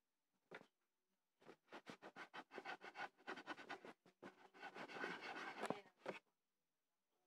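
Faint scratching of a drawing tool on paper in quick back-and-forth strokes. One short stroke comes about half a second in, then two runs of rapid strokes, one from about a second and a half to four seconds and one from just after four to six seconds.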